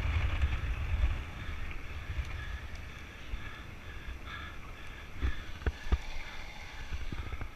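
Longboard wheels rolling over asphalt, with wind buffeting the microphone of the rider's camera. A few sharp clicks sound near the end.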